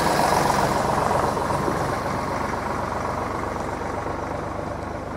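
An express passenger train receding: the rumble of its coaches on the rails fades steadily, with a low steady drone underneath.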